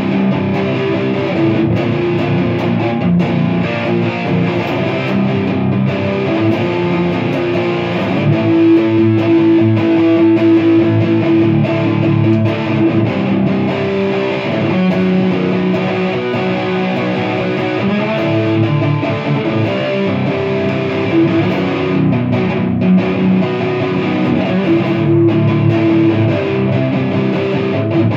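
Electric guitar with humbucker pickups played through a crunchy, overdriven tone, working through a chord progression of sustained, changing chords.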